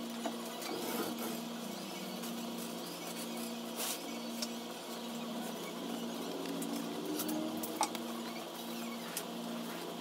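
Scattered light clicks and taps of hand work on a dismantled scooter engine, over a low hum that cuts in and out in a regular pattern.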